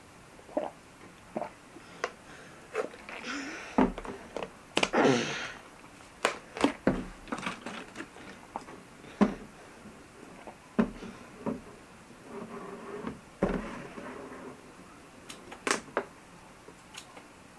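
A plastic water bottle being drunk from and handled: scattered clicks, taps and crinkles, with longer rustling stretches about four to five seconds in and again about thirteen seconds in.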